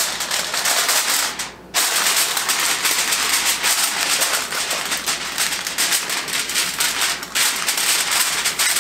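Aluminium foil crinkling and crackling as it is pressed over a baking pan and crimped down around the rim, with a short pause about a second and a half in.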